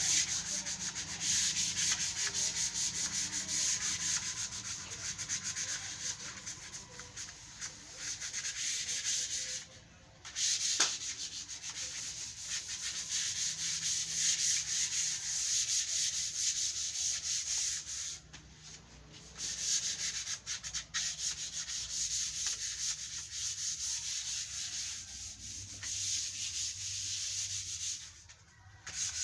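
Fine 240-grit sandpaper rubbing back and forth over wood freshly coated with sanding sealer, a steady scratchy rasp: the first sealer coat being sanded smooth. The sanding stops briefly three times, near ten seconds, around nineteen seconds and near the end.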